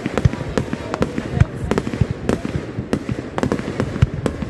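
Fireworks going off: a dense, irregular run of bangs and crackles from several bursts at once, many a second.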